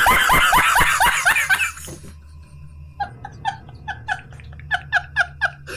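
Laughter in quick repeated bursts, loud in the first two seconds, then a quieter run of short, evenly spaced 'ha' notes, about three a second.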